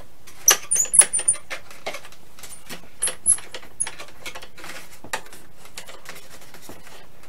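Handling noise from a foam RC airplane being lifted and tilted by hand: a quick run of light clicks and taps with a few short, high squeaks. The clicks thin out after about four seconds.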